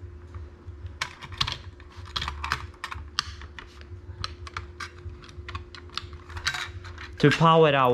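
Irregular light clicks and taps, like keys or small hard plastic parts being handled, over a faint steady electrical hum. Near the end comes a short, louder vocal hum falling in pitch.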